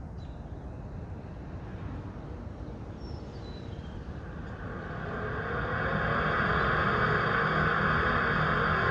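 Furnace exhaust vent pipe starting to blow: a steady rush of air with a fan whine and low hum that rises about five seconds in and then holds steady.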